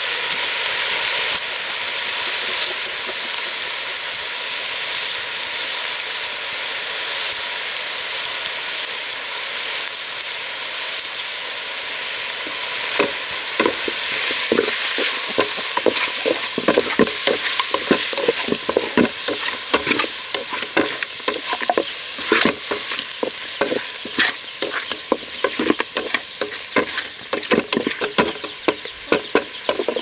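Pieces of meat sizzling as they fry in a black iron pot, with a steady hiss. From about halfway in, a spatula scrapes and knocks against the pot in quick, uneven strokes as the meat is stirred.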